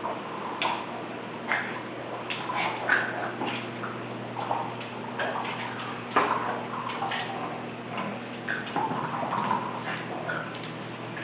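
A pug breathing noisily, with irregular short rasping and clicking sounds from her nose and throat.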